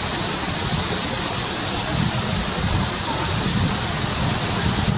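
Waterfall in full monsoon flow: a loud, steady rush of falling water.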